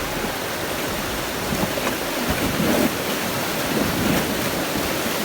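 Whitewater rapids rushing steadily close around a raft, with some wind on the microphone.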